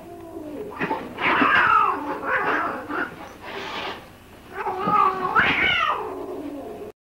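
Cat yowling at a dog in about three long, wavering calls.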